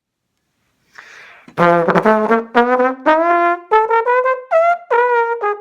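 Solo trombone playing a melodic phrase of separate notes, some of them slid, starting about a second and a half in after a short airy hiss.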